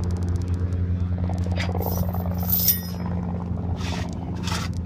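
Aircraft tie-down chain being unhooked, metal clinking and scraping in short bursts, over a steady low engine hum.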